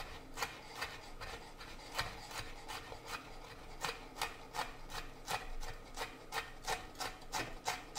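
Chef's knife chopping a red chilli on a wooden cutting board: a steady run of light knocks, about three a second.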